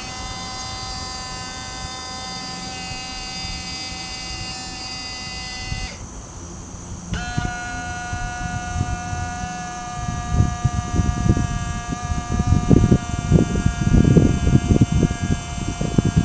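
Hoist motor of an LGB MAN model overhead crane whining steadily as it lifts a barrel; it stops for about a second around six seconds in, then starts again. From about ten seconds in, irregular low rumbling thumps join it.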